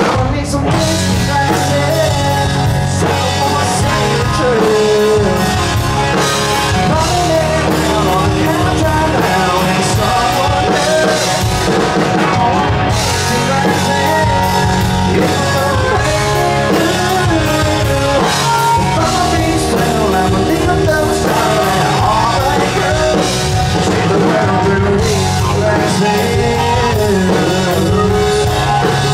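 A live rock band plays loudly: drums, bass, and electric and acoustic guitars, in an instrumental break between sung verses. A harmonica plays the bending lead line over the band.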